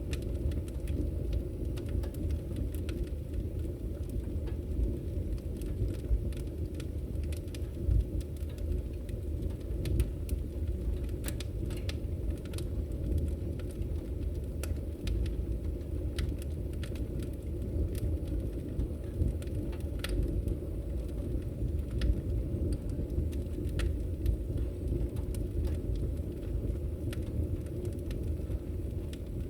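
Wood fire burning in a fireplace: a steady low rumble of the flames with scattered crackles and pops of the burning wood.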